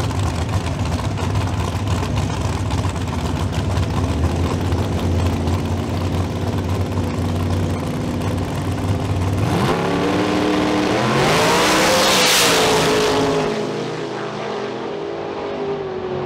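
Big-tire drag racing cars' V8 engines idling loudly at the starting line, then launching about ten seconds in. The engines rev sharply upward, peak, and fall in pitch and loudness as the cars pull away down the track.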